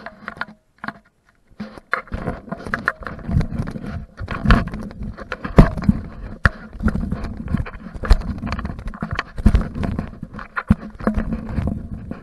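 A hand digger scraping and crunching through soil and grass roots in a freshly cut plug hole: irregular knocks, scrapes and rustles at a few per second, with a faint steady tone underneath.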